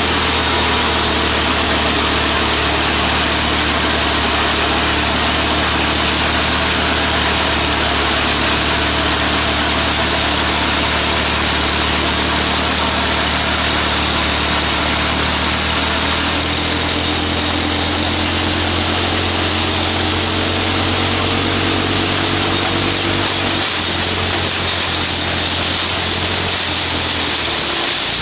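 Wood chipper's engine running steadily. Its note shifts about halfway through, and the low hum stops shortly before the end.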